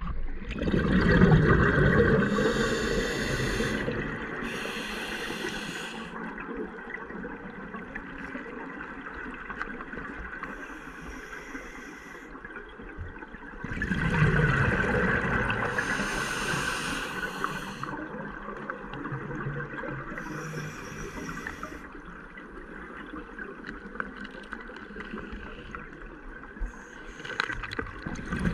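A scuba diver's regulator heard underwater: two long bouts of bubbling exhalation, one starting right away and one about halfway through, with shorter hisses of breath in between.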